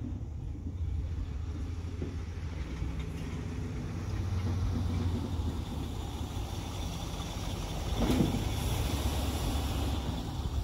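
1968 Ford Galaxie's 390 four-barrel V8 running as the car drives slowly toward the camera, its low rumble growing louder as it nears, with one short thump about eight seconds in.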